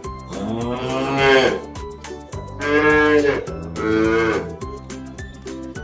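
A cow mooing three times: one long call, then two shorter ones close together.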